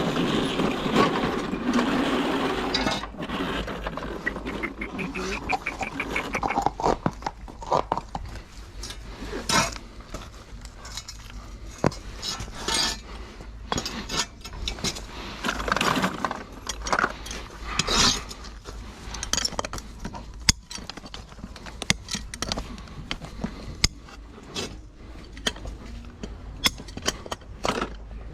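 Irregular sharp metallic taps and clinks from a farrier's hand tools working on a horseshoe and hoof, scattered unevenly rather than in a steady hammering rhythm. There is a denser, louder stretch in the first few seconds, and a steady low hum underneath.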